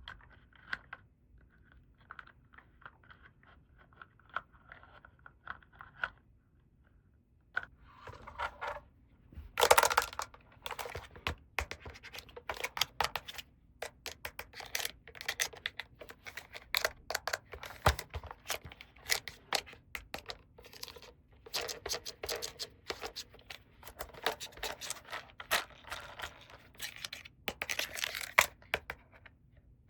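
Plastic toy packaging and small toy pieces being handled in an unboxing: scattered faint clicks and scratches at first, growing denser and louder about eight seconds in, with the loudest scrape near ten seconds.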